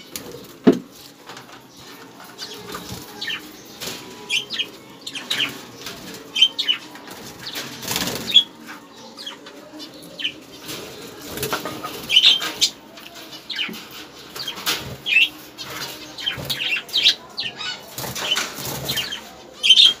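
Small caged pet birds fluttering and flapping their wings against the wire, with repeated short chirps throughout. Cage wire and plastic food cups knock now and then as feed is put into the cages.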